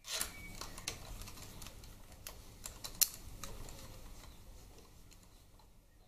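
Hand ratchet with an extension running bolts into a motorcycle's transmission side cover: irregular small metallic clicks and taps, the sharpest about three seconds in.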